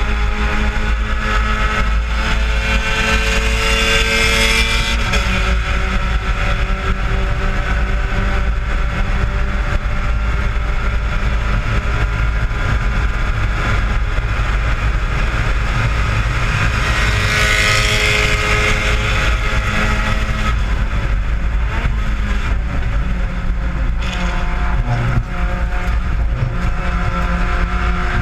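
Spec Miata race car's four-cylinder engine running at high revs under sustained throttle, heard from inside the stripped cabin, with a steady haze of wind and road noise. The engine pitch holds mostly steady, with small shifts a few times.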